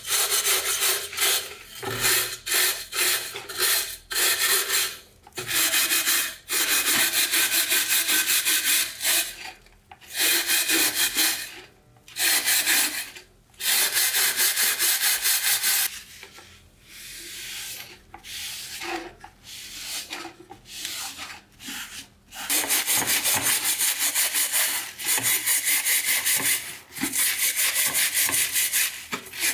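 Hand scrubbing the metal oil reservoir of an antique oil lamp in rapid back-and-forth strokes, in runs of one to three seconds with short breaks, softer for several seconds in the middle.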